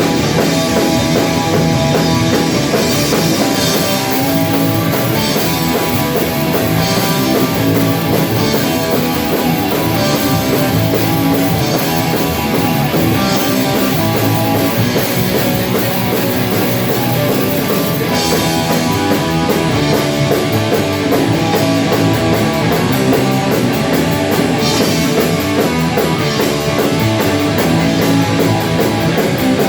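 Rock band rehearsing an instrumental passage: heavy guitars over a drum kit, loud and continuous, with a rapid high ticking coming in about two-thirds of the way through.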